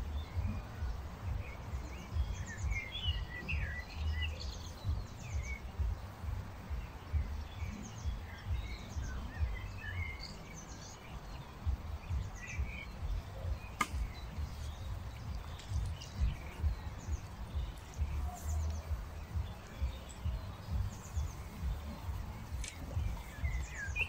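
Small birds chirping and singing over gusty wind buffeting the microphone, with a single sharp click about halfway through.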